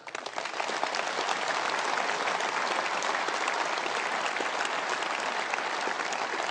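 Large hall audience applauding: dense clapping that starts suddenly, swells within the first second and then holds steady.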